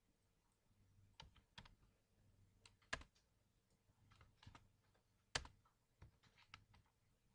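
Computer keyboard keystrokes: a few scattered, sparse taps, with two louder strokes about three seconds in and again past five seconds, then a short run of quick taps near the end.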